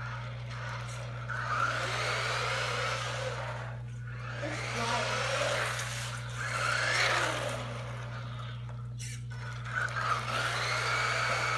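Small battery-powered RC car's electric motor whining with tyre hiss as it drives past on concrete, rising and falling in pitch and loudness in three waves.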